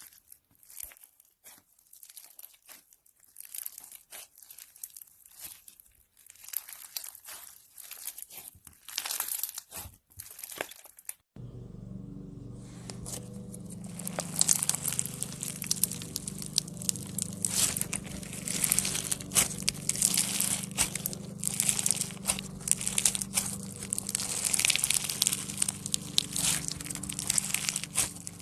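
Slime being squeezed and poked by hand, making crackling, crinkling clicks and squishes. About eleven seconds in the sound cuts abruptly to a louder, denser crackling over a steady low hum.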